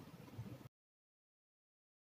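Near silence: faint background noise that cuts off to dead silence less than a second in.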